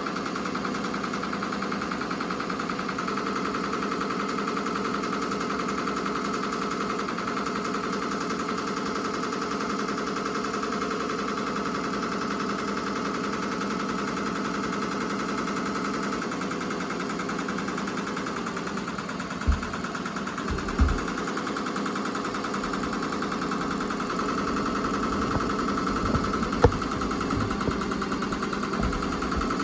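Ricoma MT-2002-8S eight-needle embroidery machine running steadily, its needle stitching in a fast, even mechanical rhythm. A few short thumps stand out over it in the second half.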